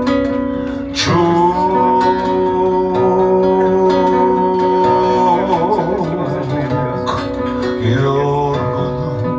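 A man singing into a microphone while picking an acoustic guitar. About a second in he holds one long note that wavers near the middle, then starts a new phrase near the end.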